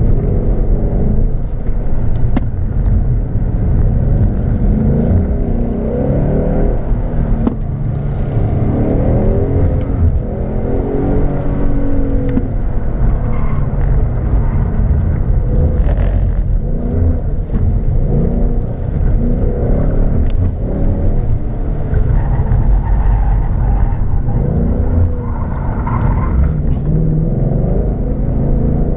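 2015 Ford Mustang GT's 5.0-litre V8 engine accelerating hard and backing off again and again through an autocross course, its pitch repeatedly rising and falling.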